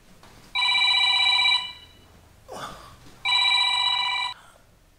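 Electronic telephone ringer ringing: two trilling rings of about a second each, a little under two seconds apart, with a brief soft rustle between them.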